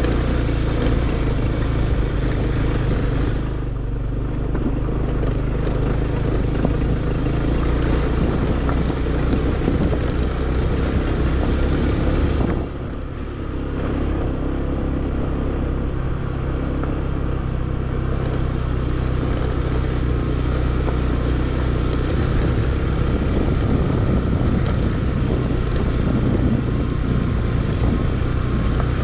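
Motor scooter's engine running at low speed on a rough, rutted dirt track, with road and rattle noise over a steady hum. The sound dips briefly twice, about four seconds in and again around thirteen seconds in.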